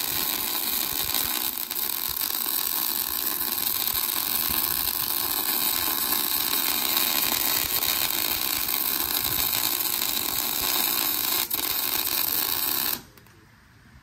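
Stick welding: the arc's steady crackling hiss, which cuts off sharply about a second before the end as the arc is broken.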